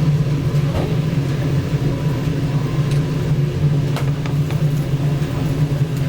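Steady low mechanical hum, with a couple of faint sharp clicks over it.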